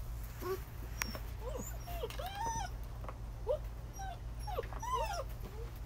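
Six-week-old German Shepherd puppies whining and yipping: about ten short calls, each rising and falling in pitch, over a steady low hum.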